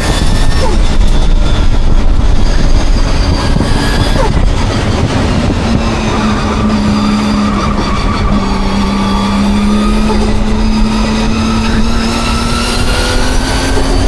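Nissan Skyline race car's engine running loud at speed on a track. Its pitch falls slowly to a low point about halfway through, then climbs again as the engine revs back up. The owner calls the car misfiring.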